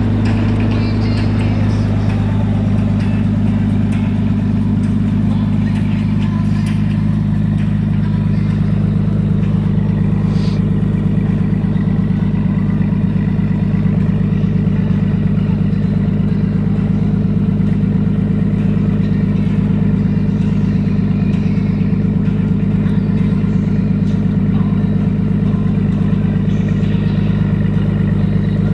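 Engine of a 1950 Bombardier B12 snow bus idling steadily, an even low-pitched running with no revving.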